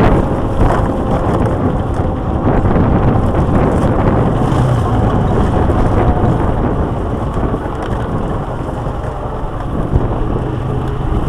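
Quad bike engine running steadily as it travels a rough dirt track, mixed with wind rumbling on the microphone.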